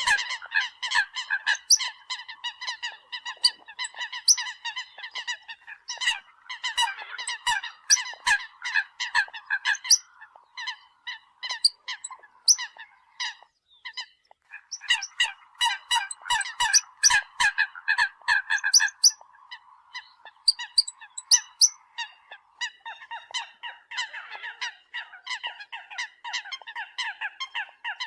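Eurasian coots calling, a dense run of short, sharp honking notes repeated rapidly, several birds overlapping, with a brief lull about halfway through.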